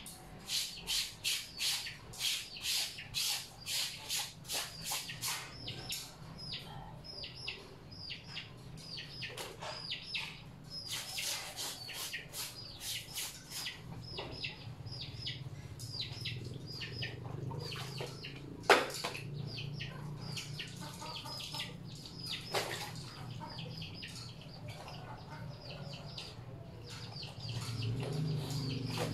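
A small bird chirping over and over, a few short high chirps a second, throughout. Through it come spells of rhythmic swishing strokes from laundry being scrubbed by hand in a water basin, and one sharp knock about two-thirds of the way through.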